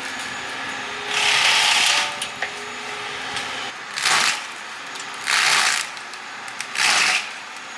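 Eterra EX-30 V2 excavator flail mower running and shredding brush. It gives four loud rasping bursts of about half a second to a second each over a steady running background.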